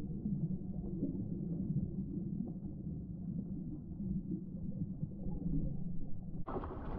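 Muffled underwater rumble of moving water picked up by a submerged camera, with a steady low hum. About six and a half seconds in the camera breaks the surface and the sound turns suddenly bright, with splashing.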